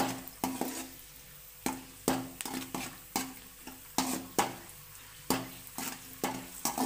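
Perforated steel spoon stirring cashews frying in oil in a steel kadai: sharp scrapes and knocks of metal on metal about twice a second, each with a short ring from the pan, over a faint sizzle as the cashews turn light golden.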